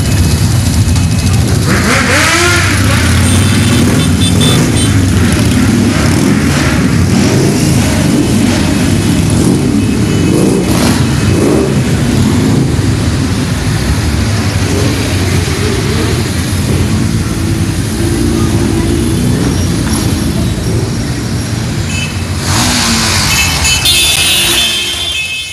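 A procession of motorcycles and scooters riding slowly past, many engines running at once without a break, with one engine revving up about two seconds in.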